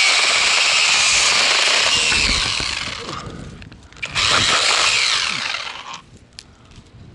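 Kobalt 24-volt cordless 6-inch mini chainsaw running in two bursts: the first about three seconds long and winding down, then a shorter second run of about two seconds that also dies away.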